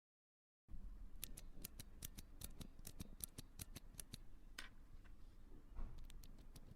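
Typing on a Keychron V2 mechanical keyboard with lubed Cherry MX RGB Blue clicky switches: a quick, even run of sharp key clicks, about five a second, starting just under a second in.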